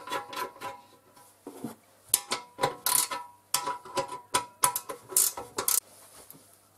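Ratchet wrench clicking as it works the drain plug, with a new crush washer, on a welded aluminium short sump. The clicks come irregularly, a few at the start and then a longer spell from about two seconds in. Each click leaves a brief metallic ring.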